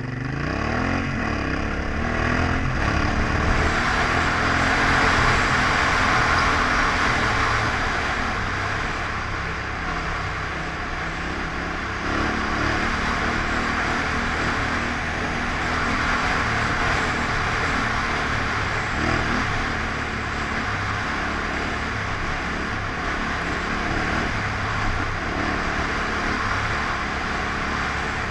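Yamaha Ténéré 700's parallel-twin engine running under way off-road, its note rising as it accelerates in the first few seconds, then holding a steady pace. A strong, steady rush of wind over the camera microphone runs alongside it.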